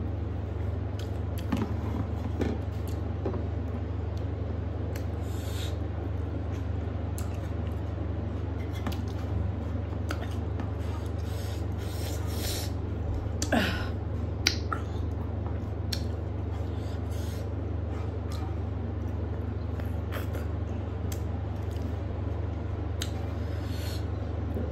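Fingers scraping and mixing rice and curry on a metal plate, with eating and chewing sounds, over a steady low hum. A few sharper clicks come a little past halfway.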